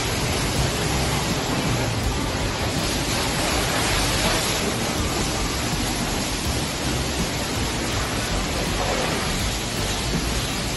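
Self-serve car wash high-pressure wand spraying soapy water onto a car's body: a steady, even rush of spray that holds without break.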